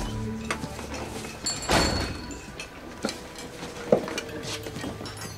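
Quiet restaurant background with scattered clinks and knocks of dishes. There is a short rush of noise about two seconds in and a single sharp knock near four seconds.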